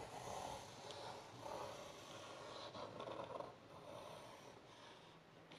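Faint scratching of a pencil drawing on paper, in short strokes about once a second.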